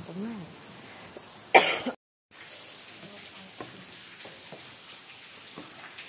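A person's short voiced sound, then one loud, sharp cough about a second and a half in. Right after it the sound cuts out completely for a moment, and faint scattered ticks follow over a low hiss.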